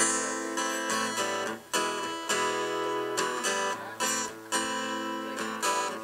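Acoustic guitar strumming chords in a steady, rhythmic pattern, with no singing.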